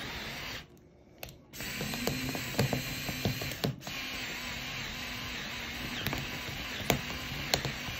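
Electric drill with a twist bit running under load, drilling out the metal axle at the hub of a suitcase wheel. It stops about half a second in, starts again at about a second and a half, and cuts out briefly near four seconds. A few sharp clicks come near the end.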